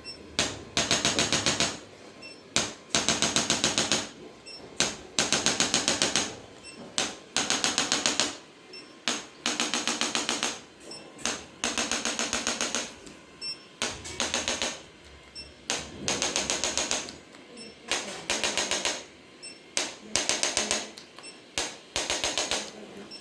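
Handheld electric chiropractic adjusting instrument firing rapid taps, about eight to ten a second, in bursts of around a second separated by short pauses.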